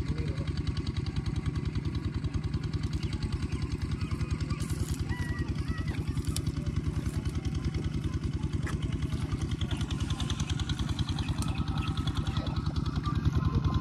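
A small engine running steadily at a fast, even beat.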